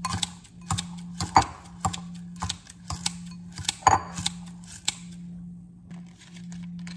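Kitchen scissors snipping fresh spinach leaves in a bowl: a quick run of sharp snips, about two or three a second, stopping about five seconds in.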